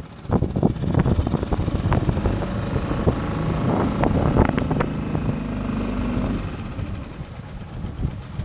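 Small outboard motor running on a metal boat, with wind buffeting the microphone and short knocks throughout. The motor's hum eases off about six seconds in.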